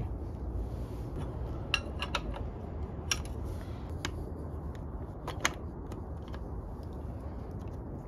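Light metallic clicks and rattles of a timing chain and steel cam sprocket being worked back onto the camshaft of a Datsun L28 engine: a few scattered ticks over a low steady hum.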